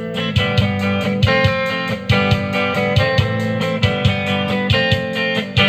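Guitar played as a strummed rhythm over a drum machine loop, the loop keeping a steady, rapid ticking beat under the chords.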